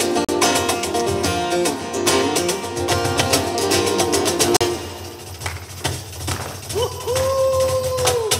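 Live acoustic band music: acoustic guitars playing with quick, sharp percussive strikes for the first half, then thinning out. Near the end a voice holds one long note before breaking off.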